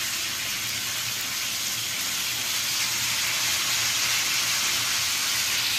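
Marinated chicken leg pieces frying in hot oil in a grill pan over a high gas flame, making a steady sizzle.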